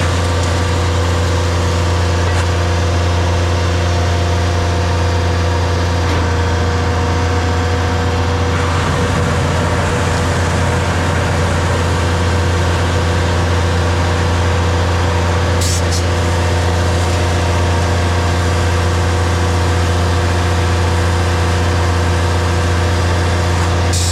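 DAF combination gully tanker running with a steady, loud drone as its engine drives the vacuum suction to empty a heavily silted gully. There is a brief rougher, noisier patch about nine seconds in.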